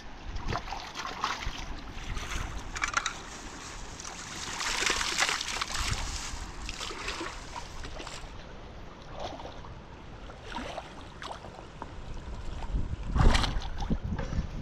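River water splashing and sloshing in irregular strokes, with the loudest splash about 13 seconds in.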